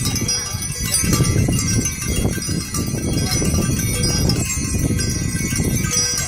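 Bells ringing, many lingering tones sounding together, over a dense low rumble.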